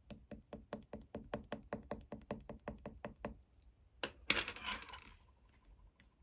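A quick, even run of light knocks, about six or seven a second, for about three and a half seconds, then a single click and a short, louder burst of scraping, crunching noise.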